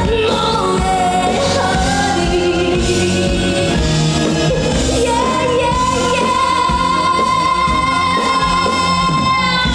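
A Korean pop song performed live, with singing over band accompaniment; a long held note rises in about halfway through and is sustained to the end.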